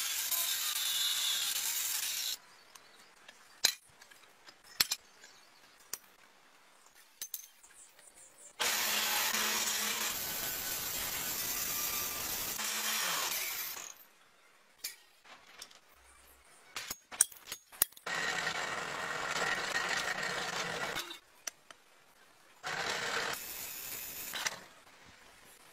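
Metalworking power tools in several bouts of a few seconds each: an angle grinder cutting steel plate at the start, further runs of tool noise between quiet stretches with scattered sharp clicks and knocks, and a drill boring through steel near the end.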